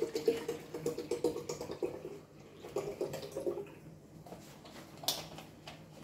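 Milk glugging out of a carton into a glass jar in two pours: a longer one of about two seconds, then a shorter one about three seconds in. A light knock follows about five seconds in.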